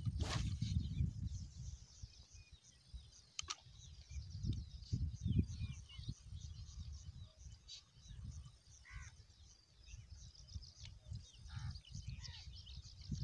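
Many small birds chirping and twittering, with a gusty low rumble of wind on the microphone.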